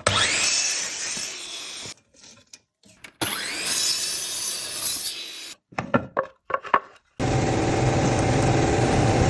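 CNC router cutting wood in two spells of about two seconds, each opening with a rising whine, with hard breaks between them. A few sharp clicks follow, then from about two seconds before the end a steady low hum.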